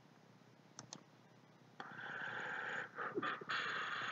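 Two faint clicks about a second in, then a person breathing out noisily close to the microphone: a steady breathy hiss from about two seconds in, broken briefly just after the three-second mark.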